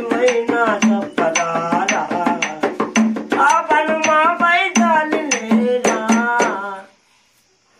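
A man singing a Telugu folk song in a full, wavering voice, keeping time with quick finger taps on a small hand-held block. Singing and taps stop together about seven seconds in.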